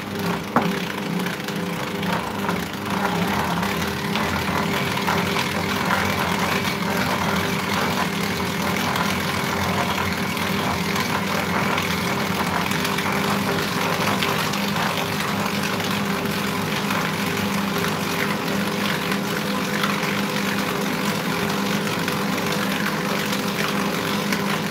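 Ankarsrum Assistent stand mixer running steadily, its motor humming with a clatter of dough as the turning bowl kneads crumbly cookie dough.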